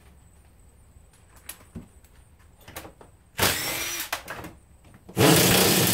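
A few light metal clicks, then a cordless power drill or driver run in two bursts, a short one about three seconds in and a longer one near the end, on an alternator fastener that just spins rather than coming loose.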